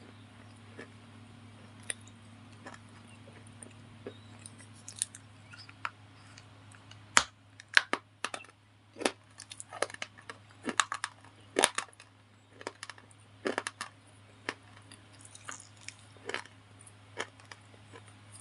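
Crisp crunches and snaps of a white slate bar being bitten and chewed, sparse at first, coming thick and fast through the middle, then thinning out. A low steady hum runs underneath.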